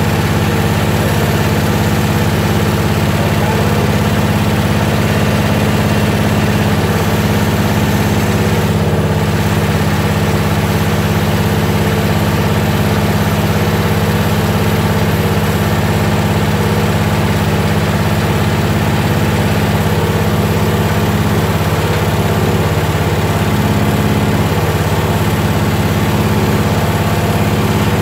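Single-cylinder Briggs & Stratton engine of a rear-engine lawn tractor running steadily at mid-range throttle.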